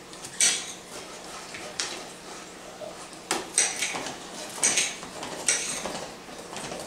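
Kitchen knives cutting vegetables on cutting boards: about six sharp, irregularly spaced knocks of the blade striking the board.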